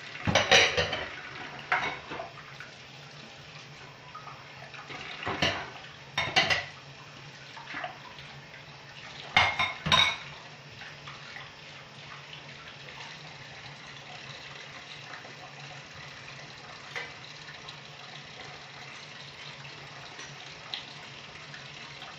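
Kitchen tap running steadily into a stainless-steel sink during dishwashing, with clatters of dishes and pots knocking together and being set down. The clatters come in the first ten seconds, the loudest about ten seconds in, then the water runs on alone.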